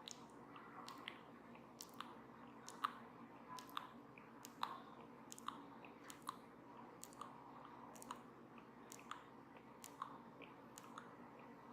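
A brush stroked against a microphone: a faint scratchy rustle broken by crisp ticks, roughly one to two a second.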